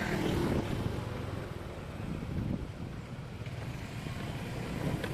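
Steady vehicle engine and road noise in traffic, a low rumble with no horn sounding.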